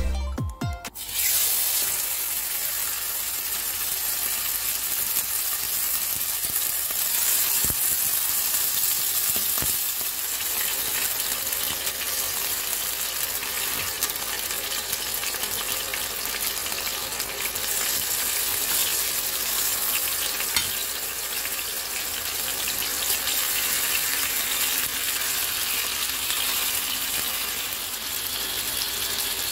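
Seasoned chicken breasts searing in hot oil in a frying pan: a steady sizzle with fine crackles, starting about a second in.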